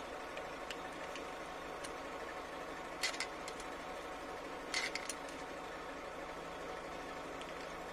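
Light metallic clinks of a ring spanner and feeler gauge on the valve rocker arm adjusting screw and locknut while setting valve clearance on a Hino 260 Ti truck engine. There is one short cluster about three seconds in and another nearly five seconds in, over a steady background hum.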